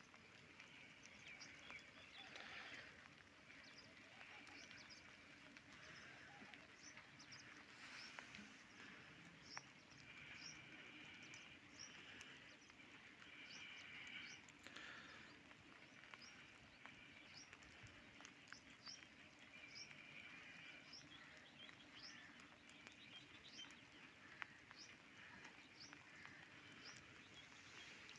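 Faint rural ambience with a small bird giving short, high chirps over and over, about one or two a second.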